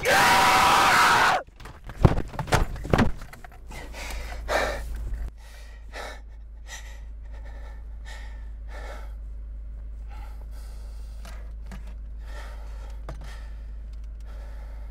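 A man screams for about a second and a half, then hits the steering wheel of a car with a few sharp thumps. After that come heavy gasping breaths, which settle into quieter sighing breaths about once a second.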